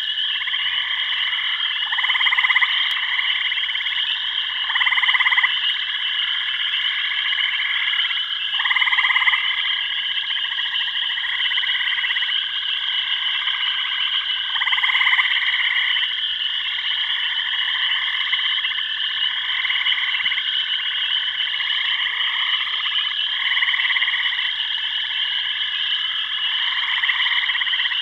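A chorus of frogs calling: overlapping pulsed calls repeat roughly once a second, with louder ones standing out every few seconds, over a steady high trill.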